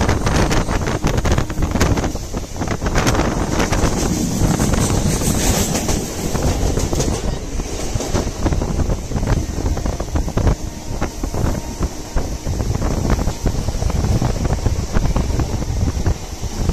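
Wind rushing and buffeting over the microphone at the window of a moving MEMU electric train, over the train's running rumble and an irregular clatter that thins out after the first half.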